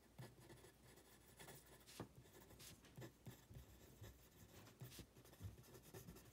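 Faint scratching of a pen writing on a sheet of paper, in short irregular strokes.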